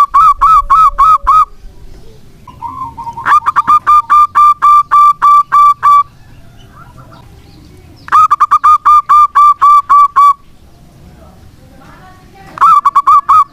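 Local zebra dove (perkutut) cooing in bouts of fast, evenly spaced notes, about five a second. Each bout lasts two to three seconds, with pauses of about two seconds between them; one bout ends about a second in and the last starts near the end.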